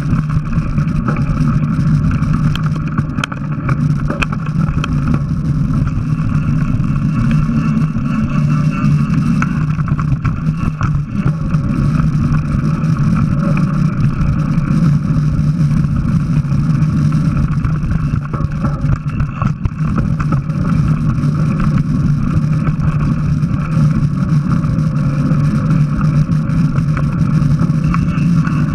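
Steady rumble of a mountain bike ridden fast on a dirt singletrack, picked up by a bike-mounted action camera: tyre and trail noise mixed with wind on the microphone and a constant low hum.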